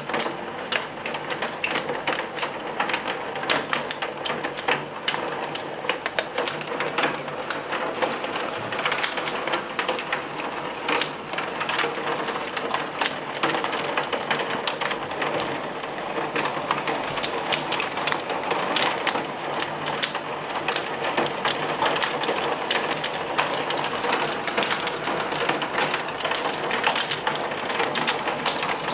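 Heavy rain mixed with hail beating on a window and its sill: a steady downpour peppered with many sharp ticks of hailstones striking.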